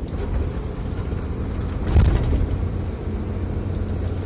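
Isuzu FVR truck's six-cylinder diesel engine running while the truck is driven, heard inside the cab as a steady low rumble, with one thump about two seconds in.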